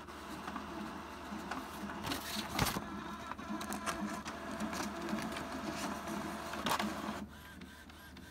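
Epson XP-8500 inkjet printer running a print-head alignment page, with the whir and clicks of the paper feed and print-head carriage. The loudest click comes about two and a half seconds in. About seven seconds in the noise drops to faint, regular ticking.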